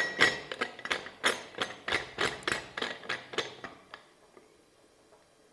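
Aluminium pressure cooker lid being fitted and twisted shut: a quick, uneven run of sharp metal clicks and knocks against the pot rim, about four a second, stopping about four seconds in.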